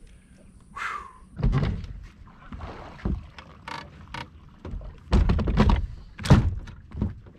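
Thumps and knocks on a bass boat's front deck as a person moves about and handles gear, a series of short impacts with the loudest coming close together about five to six and a half seconds in.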